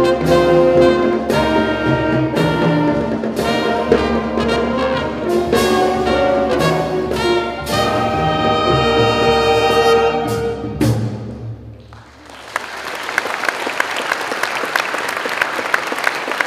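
High school concert band of brass, saxophones, flutes and drums playing a patriotic salute, ending on a held final chord about eleven seconds in. The audience then breaks into applause.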